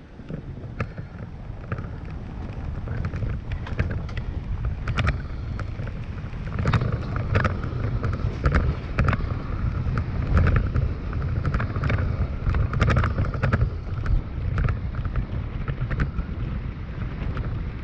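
A Toyota Tacoma rolling down a rough dirt trail: a steady low rumble of tyres and drivetrain with frequent sharp clicks and knocks from the bumpy surface, growing louder about six seconds in.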